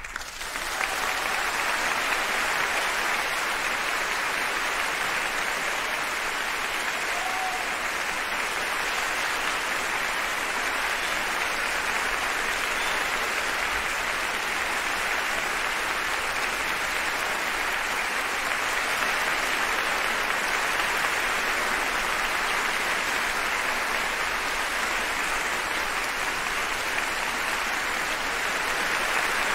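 Large audience applauding, swelling up in the first second and then holding steady.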